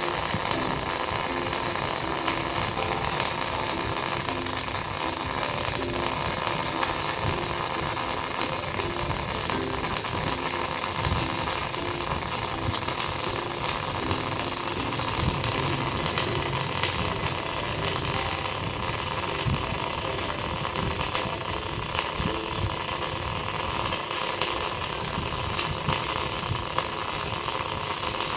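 MIG welding arc from an Edon NBC-250 single-phase welder laying a butt weld across two 5 mm plates with about a 3 mm gap: a steady, dense crackling buzz that runs without a break.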